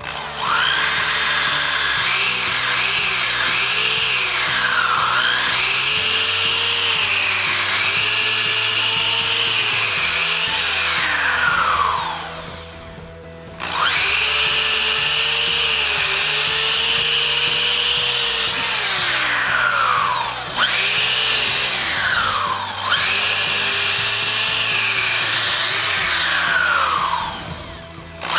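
Power drill boring holes with a long bit through a thick wooden benchtop: the motor whine repeatedly sags in pitch as the bit bites into the wood and climbs back up, with brief stops about 12 seconds in and near the end. Background music plays underneath.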